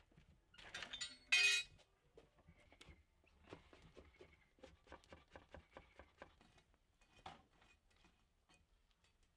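A sharp ringing clink about a second and a half in, just after a short rustling scrape, followed by a run of light clicks and knocks.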